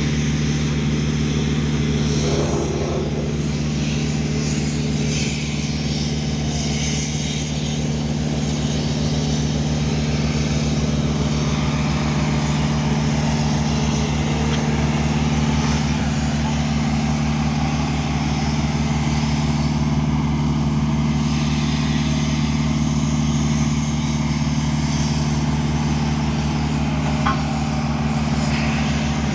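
A motor vehicle's engine running at a steady, unchanging pitch, a loud low hum with no revving.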